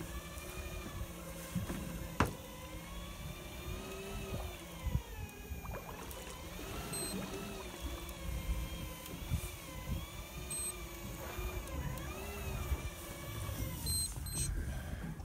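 Electric fishing reel winding in a hooked fish, its motor whine wavering up and down in pitch as the fish pulls against it. A sharp click about two seconds in, and a few short high beeps later on.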